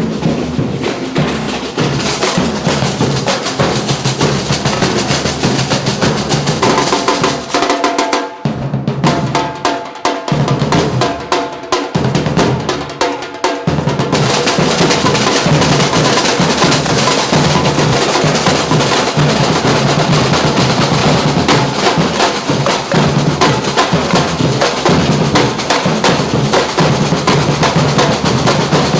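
Street drum band playing a fast, dense rhythm on snare and bass drums. About eight seconds in the drumming thins to a sparser break for several seconds, then the full band comes back in.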